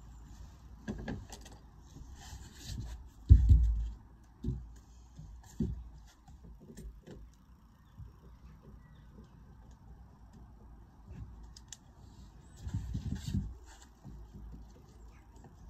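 Lead sheet capping being handled and worked: irregular knocks and bumps with metallic clinks and rustling. The loudest knock comes about three and a half seconds in, and there is a cluster near the end.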